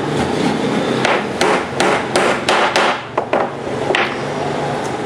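Hammer striking small nails into a wooden block on a particleboard shelf panel: a run of sharp blows, about two to three a second, ending with a last blow about four seconds in.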